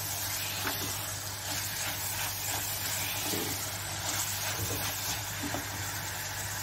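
Minced mutton and potato pieces sizzling as they fry in oil in a pot, stirred with a silicone spatula, over a steady low hum.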